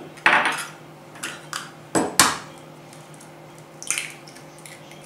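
Kitchen clatter: a handful of short, sharp clinks and knocks of dishes and utensils being handled around stainless steel mixing bowls, the loudest two close together about two seconds in and one more near four seconds.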